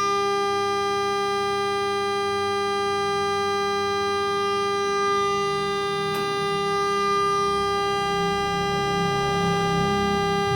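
Acsoon 400 Hz AC power source running, giving off a steady, unwavering electrical whine with a string of overtones.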